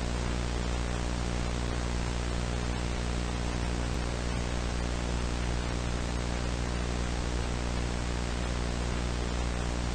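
Steady hiss with a low electrical hum and its overtones, unchanging throughout: background recording noise with mains hum, no other sound.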